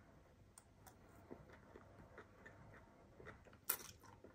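Faint chewing of noodles with small scattered mouth clicks, and one short louder noisy sound a little under a second before the end.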